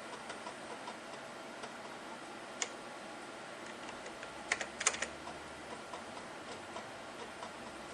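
Keys being pressed on a word processor's keyboard: light, scattered key clicks, with one sharper click a few seconds in and a quick run of louder clicks about halfway through.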